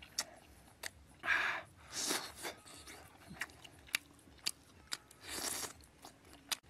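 A person chewing chunks of braised beef close to the microphone, with scattered short clicks and a few soft noisy bursts between bites.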